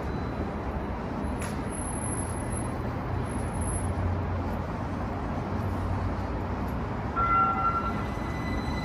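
Streetcar rolling slowly past with a steady low rumble. About seven seconds in, a short high-pitched squeal sounds, then a thin steady high whine begins.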